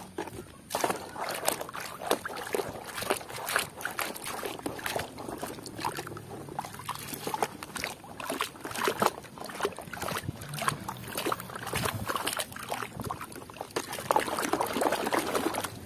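Water sloshing and splashing in a basin as a hand scrubs a plastic toy crocodile in muddy, soapy water, in quick irregular swishes.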